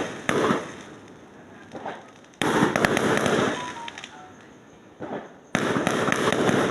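Fireworks going off: sudden clusters of rapid crackling bangs, the loudest about two and a half seconds in and again near the end, with a few smaller pops between.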